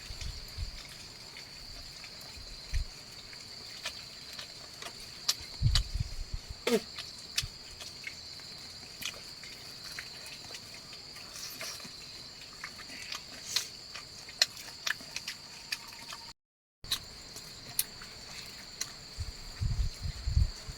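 Steady high-pitched insect chorus, with scattered sharp clicks and a few low thumps from nearby handling.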